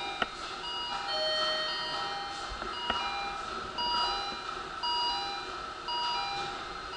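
Electronic chime tones, several pitches sounding together, repeating about once a second over a steady hum, with two sharp clicks.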